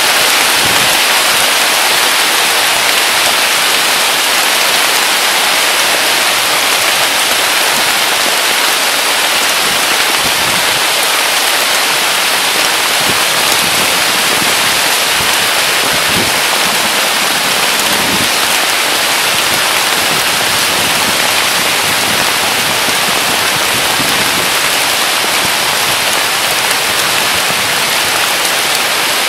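Heavy rain pouring steadily: a loud, even hiss of rain falling on foliage and grass.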